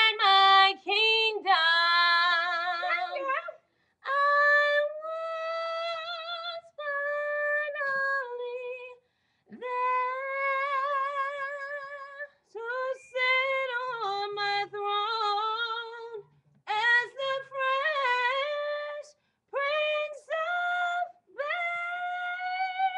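A woman singing unaccompanied, holding long notes with vibrato and sliding through runs, in short phrases with brief pauses between them.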